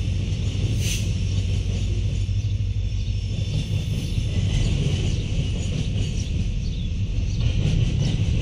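Freight train of covered hopper cars rolling past at low speed, a steady low rumble of wheels on the rails, with faint high-pitched tones above it.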